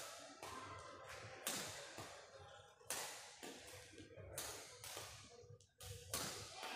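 Badminton shuttlecock struck back and forth by rackets in a rally: a series of sharp hits, roughly one or two a second, each with a short echo in a large hall.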